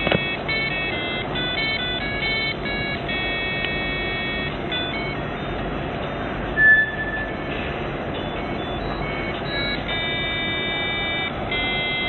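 A simple electronic tune of beeping, stepped notes played through the Arduino coaster's sound output. There is a sharp click near the start and one short, louder beep about halfway through.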